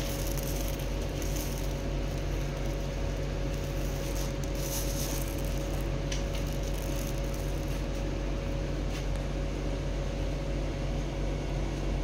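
Steady mechanical hum with a constant whine, with a few brief rattles of plastic granules trickling from a hand onto a pile.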